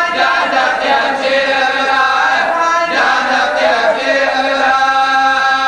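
Men's voices chanting an Urdu marsiya together, unaccompanied: a lead reciter with a group of supporting voices, holding long, drawn-out notes.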